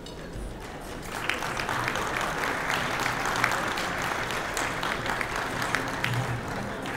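Audience applauding, a dense patter of many hands clapping that swells up about a second in and carries on.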